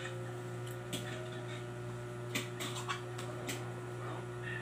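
A metal fork clinking a few times on a dinner plate during a meal: a handful of short sharp clicks, bunched around the middle, over a steady low electrical hum.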